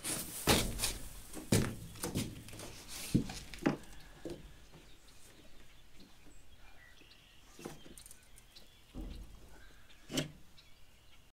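Knocks, thumps and scuffs of a person climbing out over the side of a metal grain truck bed: boots and hands striking the steel wall. Several sharp knocks come close together in the first four seconds, then a few more, spaced out, near the end.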